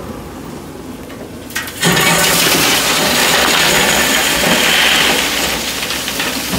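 Heavy engine running, then about two seconds in a wheel loader's bucketload of gravel pours into a metal truck body: a sudden loud, continuous rattle and rush of stones that eases off near the end as the bucket empties.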